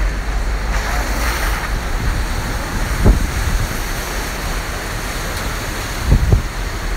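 Gusty hurricane wind rushing across the microphone, with low buffeting thumps as gusts hit it about three seconds in and twice near the end.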